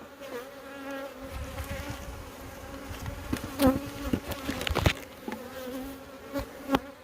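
Honeybees buzzing steadily around an open hive. Several sharp knocks come in a cluster in the middle, with one more near the end.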